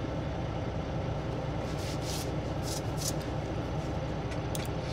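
Steady low rumble of a semi truck heard inside its cab, with a few faint short rustles.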